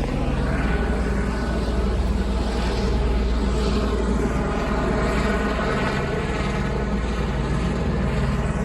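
Sheriff's helicopter flying low overhead: a steady, loud rotor and engine sound with a whine whose pitch drifts slightly around the middle.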